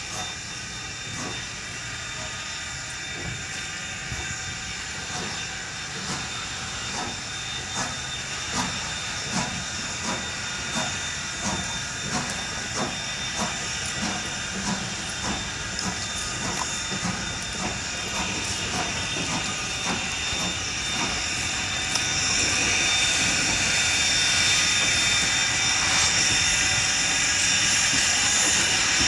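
Strasburg Rail Road #90, a 2-10-0 Decapod steam locomotive, moving slowly with a steady hiss of steam and a regular beat about one and a half times a second. The hiss grows louder about three-quarters of the way through.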